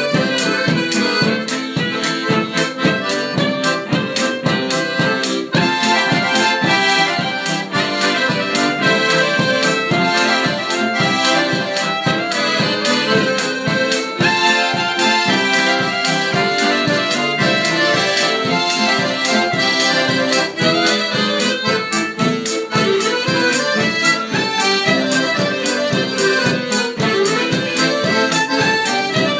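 Live band of two piano accordions, a cello and a clarinet playing a tune together, over a steady drum beat.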